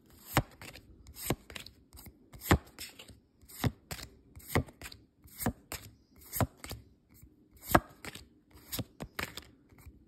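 Pokémon trading cards being flipped through in the hand: a sharp swish or snap about once a second as each card slides off the stack to the back.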